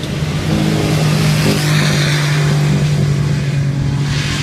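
Off-road buggy's engine running hard at high, steady revs, its note swelling up about half a second in and holding at nearly one pitch.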